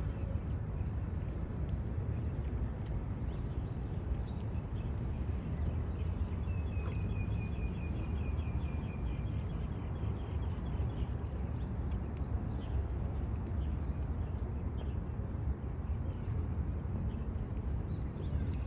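Birds chirping now and then over a steady low rumble, with one rapid trill of quickly repeated high notes lasting about three seconds, starting around six seconds in.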